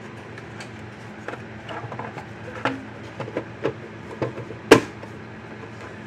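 Scattered light clicks and knocks of a Gallagher M600 fence energizer's plastic case being handled and fitted back together on a workbench. One sharp knock, the loudest sound, comes about three-quarters of the way through.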